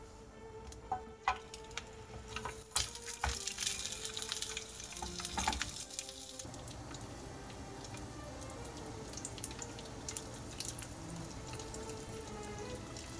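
Kitchen cooking sounds: a run of clinks and knocks from utensils and cookware for about the first six seconds, then a steady hiss of cooking, over soft background music.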